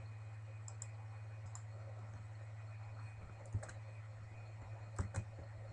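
A few scattered clicks of a computer keyboard and mouse over a steady low hum.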